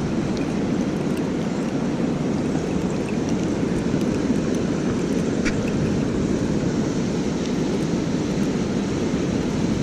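Steady rush of river water pouring over a dam, an even unbroken noise with a few faint clicks.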